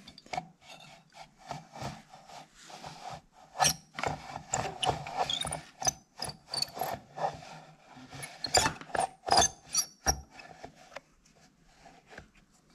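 Hands working a 2000 Ski-Doo Formula Deluxe 500 recoil starter: irregular scraping and rubbing with sharp clicks from the plastic rope pulley in its metal housing and the new rope.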